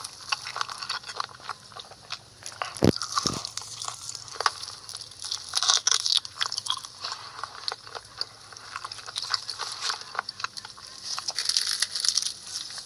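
Close-up sounds of someone biting and chewing crunchy food: a dense run of crackly crunches, with two sharp snaps a little under half a second apart about three seconds in.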